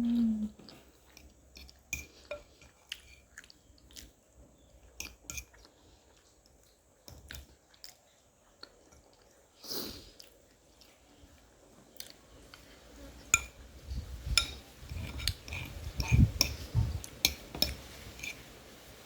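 Close-miked chewing of a meal of beans, jerked beef and pasta: soft wet mouth smacks and clicks, sparse at first and getting busier and louder in the last few seconds.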